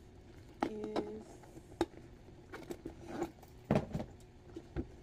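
Michael Kors Mercer Gallery bucket bag being turned over and handled: a few scattered light clicks and taps.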